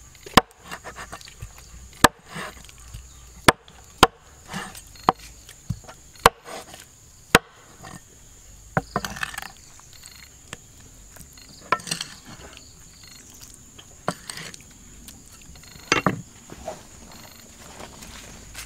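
Knife chopping on a wooden board: sharp, irregular strikes, a dozen or so, with softer scraping and handling sounds between them.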